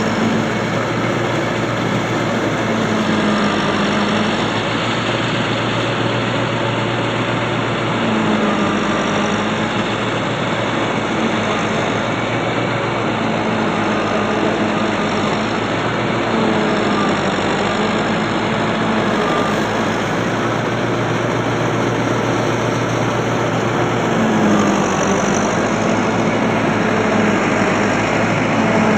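Farm tractor's diesel engine running steadily at a constant speed, driving a fodder chopper as green maize is fed in for silage; its low note briefly swells every few seconds.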